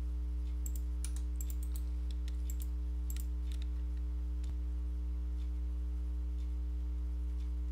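Computer keyboard keys and mouse buttons clicking, a quick run in the first half and a few single clicks later, over a steady low electrical hum that is the loudest sound throughout.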